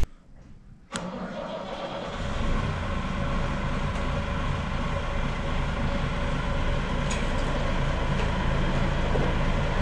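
A farm diesel engine starts about a second in and then runs steadily, rising a little in level a second later.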